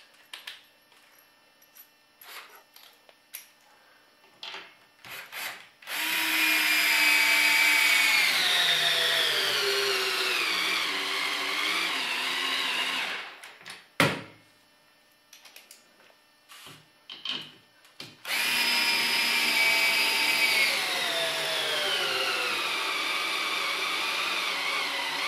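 Cordless drill boring pilot holes up into ceiling wood studs in two long runs of about seven seconds each, the motor's pitch falling steadily in each run as the bit loads up in the wood. Short handling clicks come between the runs, with one sharp knock between them.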